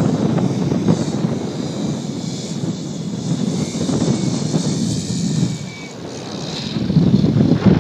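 Radio-controlled Funtana aerobatic model plane running with its motor and propeller as it flies a low pass and comes in to land. The sound dips briefly before swelling again near the end.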